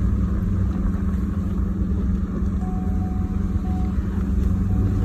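Engine of an off-road utility vehicle running steadily as it drives along, with a low drone. A faint, even whine joins in about halfway through.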